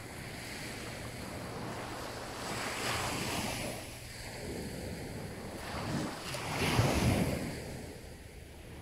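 Small sea waves washing onto a sandy beach, the surf swelling twice, the second time louder about seven seconds in.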